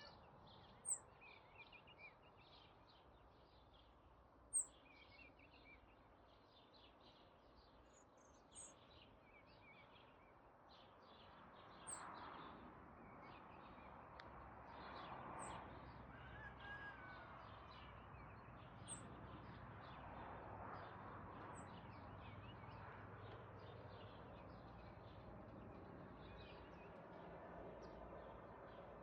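Faint outdoor ambience with small birds chirping on and off, and a short, sharp high tick every few seconds, loudest twice near the start. A faint low hum comes in about halfway through.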